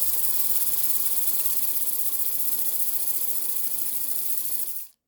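Tiny 3D-printed oscillating-cylinder air engine running on compressed air, giving a steady rapid hiss of exhausting air that cuts off suddenly near the end as the air stops.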